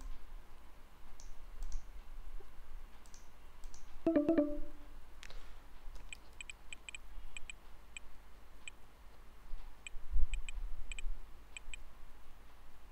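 Scattered light clicking at a computer, starting about six seconds in, as the screen is shared and the slides are moved on. A short pitched tone sounds about four seconds in, and a low thump, the loudest sound, comes near ten seconds.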